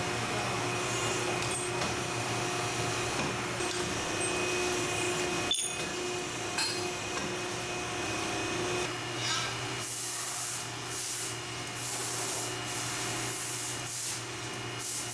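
Busbar punching and cutting machine running with a steady hum. A sharp click comes about five and a half seconds in, and a series of short hissing scrapes follows in the last five seconds.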